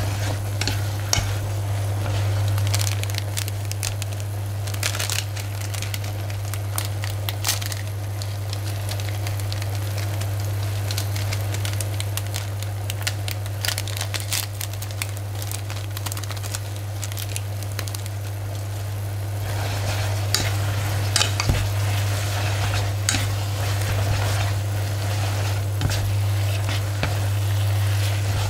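Instant spicy stir-fried noodles sizzling in a hot frying pan as they are stirred and lifted with chopsticks, with many small crackles and clicks that grow busier in the last third. A seasoning sachet crinkles midway, and a steady low hum runs underneath.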